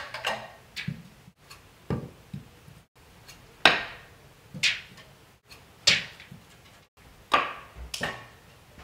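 Small balsa-wood glider clattering as it lands on a hard floor: a run of about nine sharp, light wooden clacks, one or two at a time, broken by brief abrupt silences.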